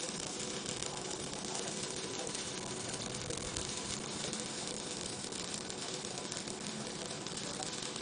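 Stick (shielded metal arc) welding arc burning on a vertical 3G joint, a steady crackling sizzle.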